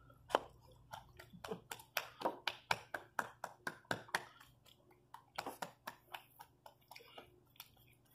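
Light, quick taps, about four a second, dying away about four seconds in and then coming a few more times: a hand patting the chest to bring up a burp.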